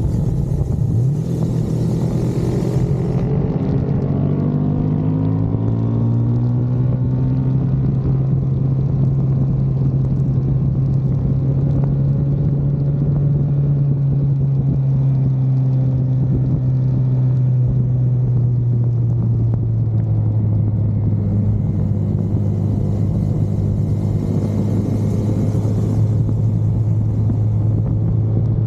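Car engine droning at fairly steady revs as the car laps the track, its pitch drifting only slightly. A hiss rises over it at the start and again about three-quarters of the way through.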